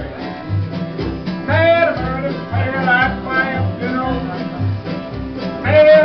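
Live country band music: a plucked upright double bass keeps a steady beat of about two notes a second, with a higher melody line over it.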